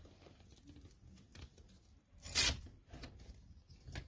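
A hook-and-loop (Velcro) strap being pulled apart: one short rip about two seconds in, amid faint rustling and handling.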